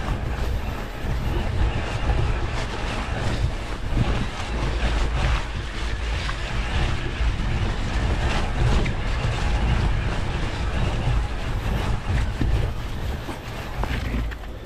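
Wind rumbling on the microphone while a Trek Powerfly 4 electric mountain bike is ridden over rough ground, with frequent short knocks and rattles from the tyres and bike.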